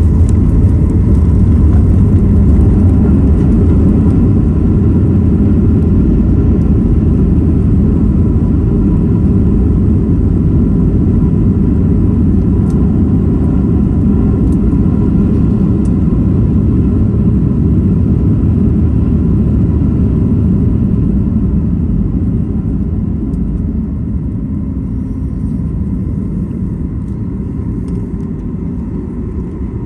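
Cabin noise of a Boeing 737 MAX 8 with CFM LEAP-1B turbofans during the landing roll: a loud, steady rumble of engines and runway that eases off over the last several seconds as the aircraft slows.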